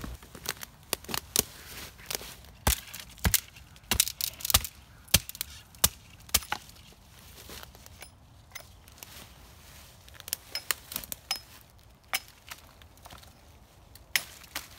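Hatchet chopping at a thin dead sapling and its branches: a string of sharp, irregular knocks and cracks, coming thickly at first and more sparsely after about six seconds.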